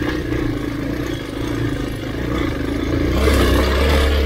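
Trail motorcycle engine running as the bike is ridden off-road, getting louder about three seconds in.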